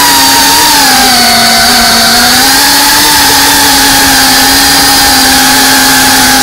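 FPV quadcopter's electric motors and propellers whining loudly and steadily, heard close up through the drone's onboard camera; the pitch sags a little about a second in, then holds level.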